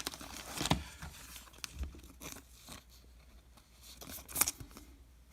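Paper-and-foil rustling and tearing of a trading-card pack being ripped open and its cards handled, a few short sharp crinkles and clicks with quiet gaps between them.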